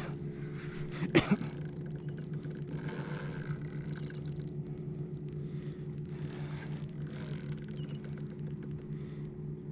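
Steady low engine hum with several even tones, with a sharp knock about a second in and faint scattered clicks throughout.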